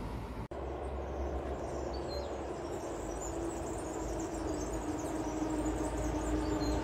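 EP09 electric locomotive approaching from far off at the head of a passenger train: a faint steady hum that slowly grows louder, with small birds chirping.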